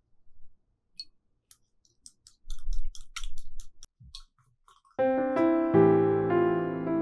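Eggs, cream and milk being beaten in a glass bowl: a utensil makes quick clicks and taps against the glass, fastest in the middle. About five seconds in, gentle piano music starts and is louder than the clicks.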